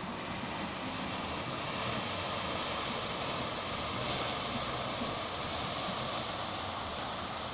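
Steady rushing of waves and churning surf, an even noise with no distinct strokes.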